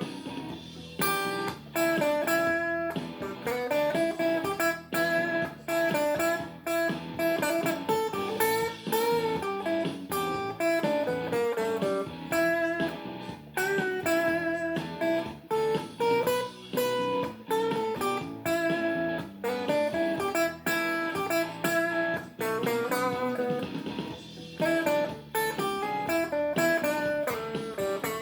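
Guitar playing a blues tune, with single picked notes and strummed chords.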